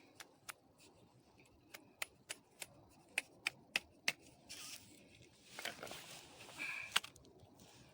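Sharp, irregular taps and clicks of ice being chipped into a hole in a frozen plastic water bottle, about three knocks a second through the middle, with a few short rustles and one loud crack near the end.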